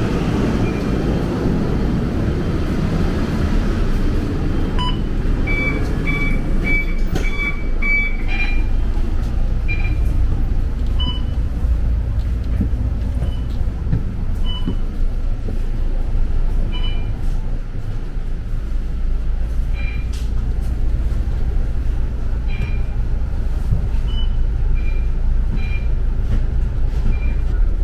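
A bus running with a steady low rumble. Short high beeps sound over it, a quick run of them about five to eight seconds in and scattered single ones after.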